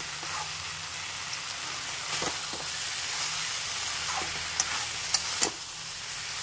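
Water spinach stems and potatoes frying over a high flame in a metal kadai: a steady sizzle, with the spatula knocking and scraping against the pan a few times as the curry is stirred.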